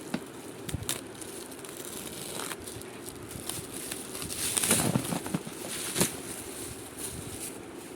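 Packaging being handled during an unboxing: crinkling and rustling with scattered sharp clicks, louder for a moment about halfway through, with a sharp click about six seconds in.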